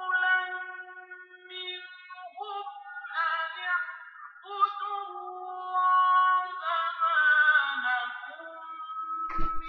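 Melodic Quranic recitation in Arabic: a single voice chanting long, drawn-out phrases with gliding pitch, heard through a television's speaker. A short thump sounds near the end.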